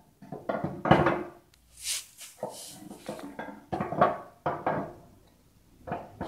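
Steel crankshaft knocking and clanking against the crankcase as it is fed by hand into the main bearing bore of a D15 diesel engine: a run of sharp metal knocks with short ringing, easing off briefly near the end.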